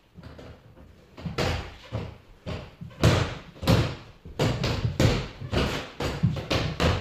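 Fists striking a freestanding reflex punching ball on a spring stem: an irregular run of slapping thuds, about two a second, starting about a second in.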